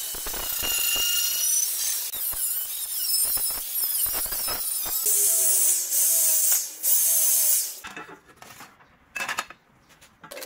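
Angle grinder whining high against a car's sheet-metal body, then an electric drill boring through a thin steel plate in three short bursts, followed by a few quieter knocks near the end.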